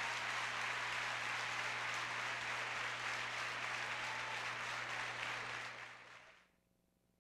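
A theatre audience applauding steadily, a dense clatter of many hands that fades out about six seconds in.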